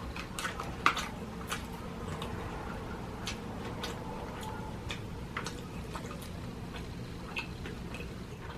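Close-up eating sounds: chewing, with irregular soft clicks and smacks scattered through, a few a second at most.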